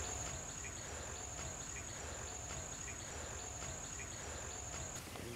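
An insect trilling in one steady, high-pitched tone that cuts off suddenly near the end, over faint short chirps repeating about every half second.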